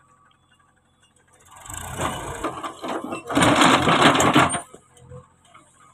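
JCB 3DX backhoe's steel bucket digging into rocky soil: a dense rattling and grating of stones and earth against the bucket. It starts about a second and a half in, is loudest around the middle and dies away near the end.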